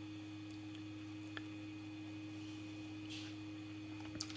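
Steady low electrical hum with two low tones, with a faint click about a second and a half in.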